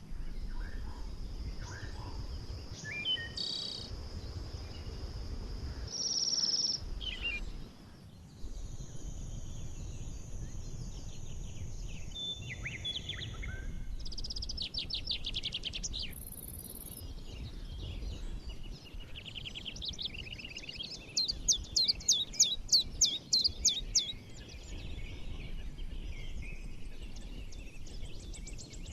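Forest bird chorus: several birds singing and chirping with high whistles, thin held notes and fast trills. The loudest is a rapid run of sharp notes about two-thirds of the way in, over a low steady rumble.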